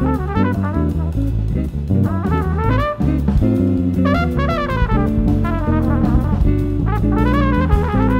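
Instrumental jazz music: a brass melody with bending notes over a bass line and drum kit.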